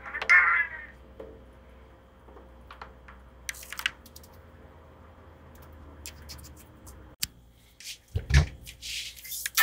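A silver tabby cat gives one short meow near the start, followed by faint rubbing and a few small clicks. Near the end comes a low thump, then the scrape of fingers and a pick on electric guitar strings.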